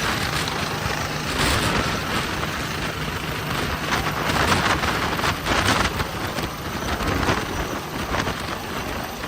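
A vehicle running steadily: a low engine rumble under a rushing hiss.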